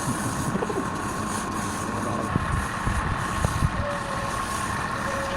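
Wood lathe running, its motor giving a steady whine over a constant mechanical hum, with a few light knocks.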